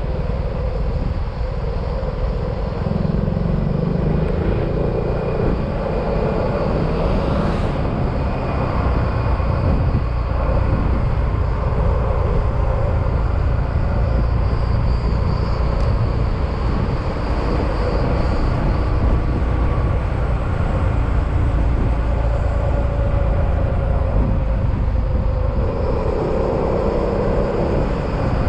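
Yamaha XMAX scooter's single-cylinder engine running while riding, mixed with steady wind and road noise; the engine note shifts with the throttle and rises near the end. A brief sharp sound cuts through about seven and a half seconds in.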